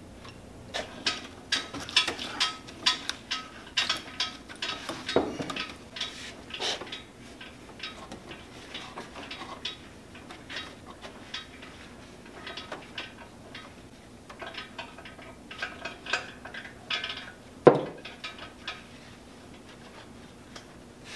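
Irregular metal clinks, rattles and knocks from hands working on a heavy automatic threading attachment hung from an engine hoist chain, with one louder knock about three-quarters of the way through.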